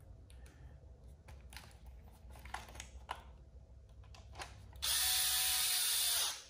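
Small clicks of screws and plastic parts being handled. Then, from about five seconds in, a power hex driver runs for about a second and a half, driving a screw into the RC truck's plastic rear bumper, and stops abruptly.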